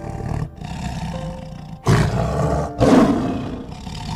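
A tiger roaring: two loud roars, each about a second long and one right after the other, a little under two seconds in, over a low rumble.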